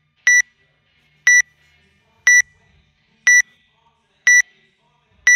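Electronic countdown timer beeping once a second, six short high-pitched beeps in a row, counting down the seconds before the workout starts.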